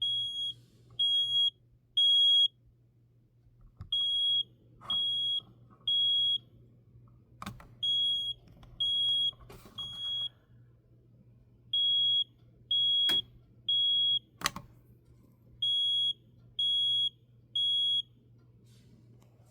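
Interconnected smoke alarms sounding the fire evacuation signal: a high-pitched beep in groups of three with a pause between groups, five rounds in all. A few sharp clicks fall between the beeps.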